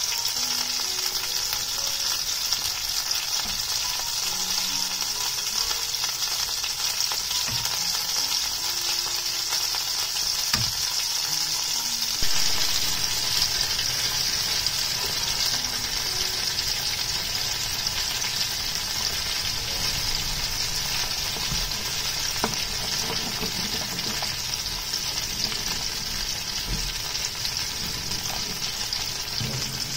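A pot of soup at a rolling boil on a gas stove, a steady bubbling hiss that gets louder about twelve seconds in. A spoon stirs it with an occasional light knock against the pot.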